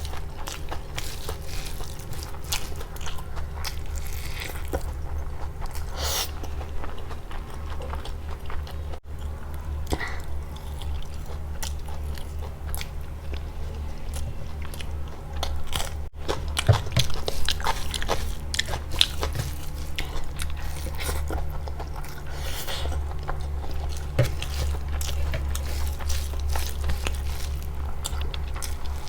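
Close-miked eating: a person biting, chewing and crunching food, with many short sharp clicks, over a steady low hum.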